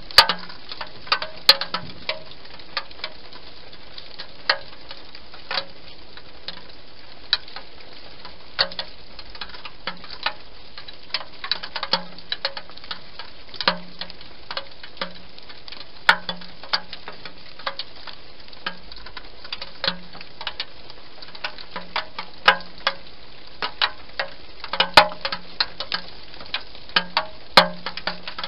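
Hedgehog eating inside a plastic feeding box: irregular sharp clicks and crunches of chewing, in quick clusters at times, over a steady background hiss.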